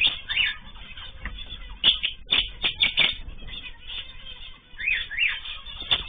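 Small cage birds calling: short sharp chirps, bunched about two to three seconds in, with a few quick rising-and-falling calls near the start and again around five seconds.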